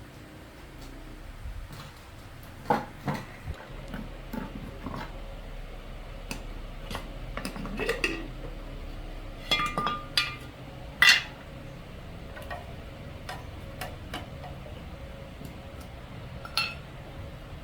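Metal parts and tools clinking and clanking as they are handled, in a dozen or so separate, irregular knocks. The loudest knock comes about eleven seconds in.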